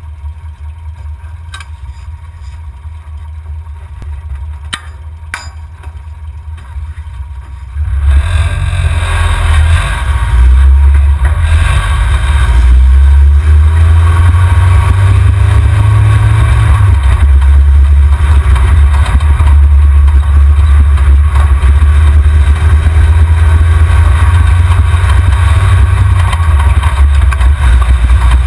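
Off-road race truck's engine idling with a low steady hum and a few clicks near the camera, then about eight seconds in the truck sets off and loud engine and driving noise takes over, the engine revving up several times and running hard.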